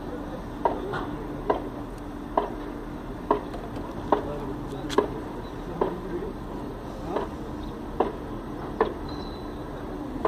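Regular sharp clicks, about one a second, evenly spaced, over a low steady hum.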